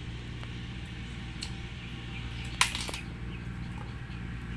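Boiled snail shells and a metal spoon clinking against a stainless steel bowl: one sharp clink about two and a half seconds in, with a couple of lighter ticks before it, over a steady low hum.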